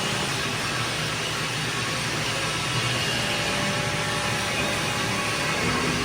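Steady mechanical running noise with a low hum from a W12-20X2200 four-roll plate bending machine in operation.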